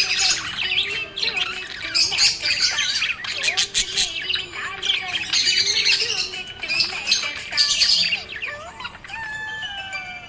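Budgerigars chirping, warbling and squawking in a dense, continuous stream of quick chirps, thinning near the end to a few longer, steadier notes.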